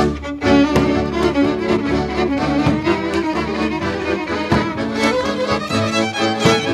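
Violin-led Hungarian folk string band playing legényes dance music at a lively pace, with the sharp slaps and stamps of a dancer's hands on his boots cutting through it a few times.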